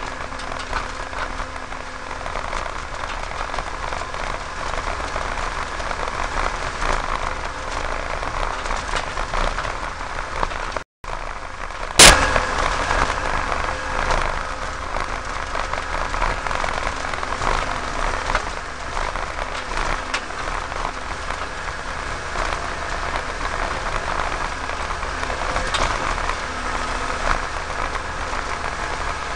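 Farm machinery engine running steadily. It briefly cuts out about 11 seconds in, and a sharp click just after is the loudest sound.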